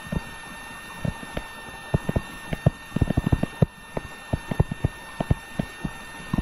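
Stylus tapping on a tablet screen during handwriting: a quick, irregular run of light taps, thickest in the middle, over a faint steady electrical whine.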